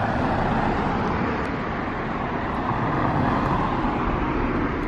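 Road traffic: cars driving past on a village road, a steady rush of tyres and engines that swells and eases slightly.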